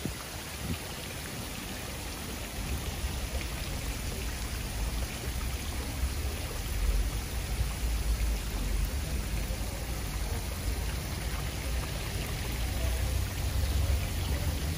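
Steady hiss of water, rain or running water, over an uneven low rumble that swells a few times.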